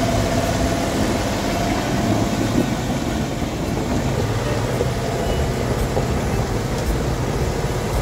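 MAN TGX 510 timber truck's diesel engine running steadily as the loaded log truck drives slowly through mud.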